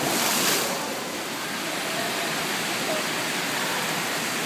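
Pool water splashing close by for about the first half-second, then a steady rush of moving water.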